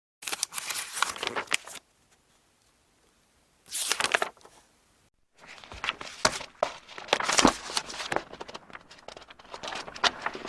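Paper book pages being flipped and leafed through. A quick run of riffled pages comes first, then a pause and a short second flutter. About halfway through a longer stretch of continuous page rustling follows, with sharp flicks.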